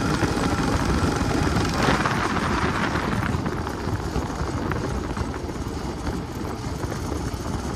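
Predator 459 single-cylinder engine running under way on a crosskart buggy, with road noise. It is loudest about two seconds in, then eases off a little.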